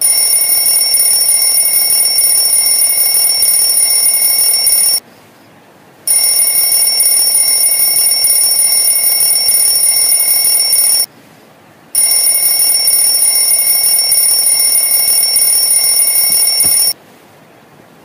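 An electronic alarm ringing with a steady, high-pitched tone. It sounds in three loud bursts of about five seconds each, separated by pauses of about a second.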